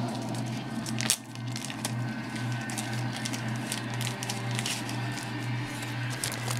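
Packaging being handled and torn open, with irregular crinkling, rustling and clicks and one sharper snap about a second in, over a steady low hum.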